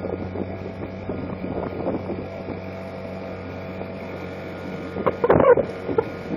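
A sailboat's motor running at a steady pace with an even hum, the boat under power with its sails down. A brief louder burst of noise about five seconds in.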